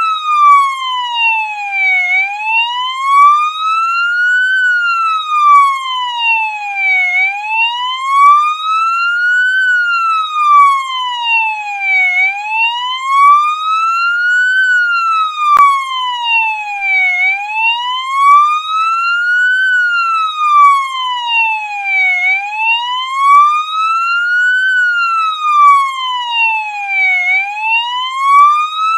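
Police siren sounding a steady wail: its pitch glides smoothly up for about two and a half seconds, then back down, repeating about every five seconds.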